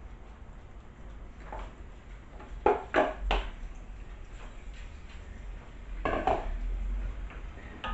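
A wooden spatula knocking and scraping against a bowl and an enamelled cast-iron casserole pan as pieces of chicken and chorizo are pushed into the pan, with a cluster of sharp knocks about three seconds in and another near six seconds.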